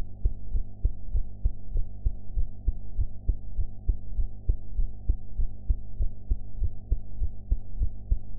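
A woman's heartbeat heard through the chest, a steady, even lub-dub rhythm of low thumps, recorded after a meal. A low steady hum runs underneath.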